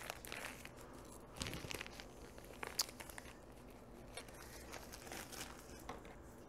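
Faint crinkling and rustling of a bag of light brown sugar being handled and folded shut, with a few light clicks.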